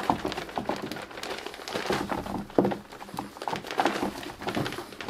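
Soil being poured and spread by hand into a 25-litre container lined with mesh: irregular rustling and crinkling with scattered soft knocks.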